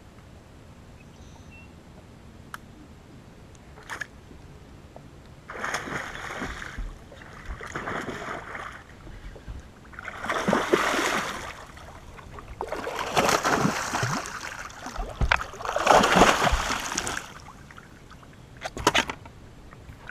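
A hooked bass thrashing and splashing at the surface in the reeds as it is fought to the boat, in several loud bursts of splashing, with a shorter splash near the end as it is lifted out.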